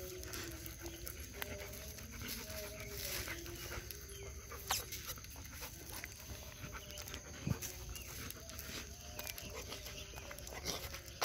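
A dog whining in long, drawn-out tones that shift in pitch, with scattered light steps and scuffs.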